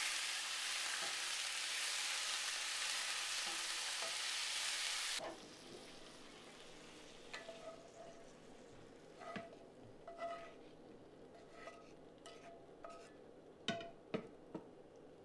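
Meat sizzling in a frying pan while it is stirred with a wooden spoon. About five seconds in, the sizzling cuts off suddenly. What follows is quieter: scattered scrapes and light knocks as the cooked meat is pushed from the pan onto a plate with the wooden spoon, with two sharper knocks near the end.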